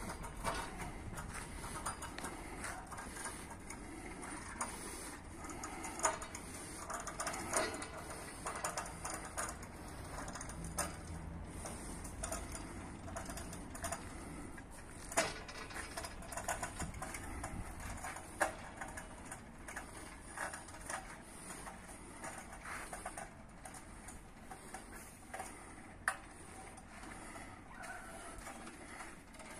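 Irregular mechanical clicks and metallic knocks from the gear used to raise a home-made antenna mast, with several sharper knocks standing out.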